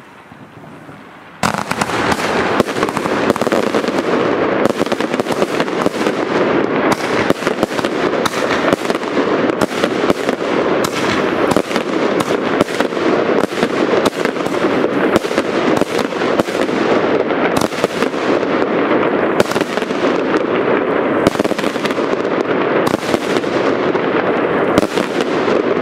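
Consumer firework battery firing a rapid, unbroken barrage of shots and bursting stars with crackling, starting suddenly about a second and a half in.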